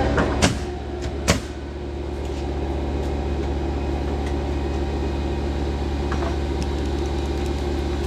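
A motor starts abruptly and runs at a steady, even hum, with three sharp knocks in the first second and a half.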